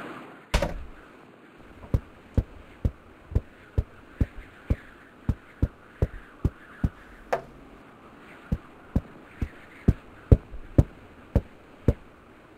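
A slow run of sharp knocks, about two a second, with a pause and a short falling creak midway, after one louder knock near the start.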